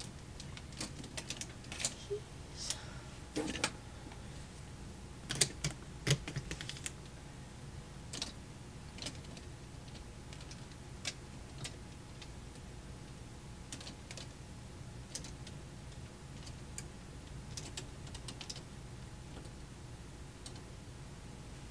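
Clothes hangers clicking and scraping on a wire closet rack as hanging clothes are pushed along and pulled out, in irregular clusters of clicks that are busiest in the first seven seconds and sparser afterwards.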